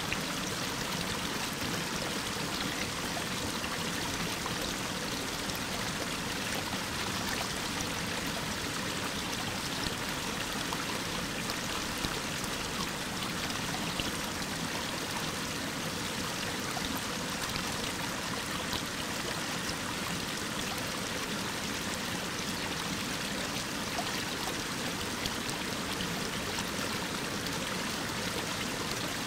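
Mountain waterfall pouring down a rock face: a steady rush of falling, splashing water, unchanging throughout.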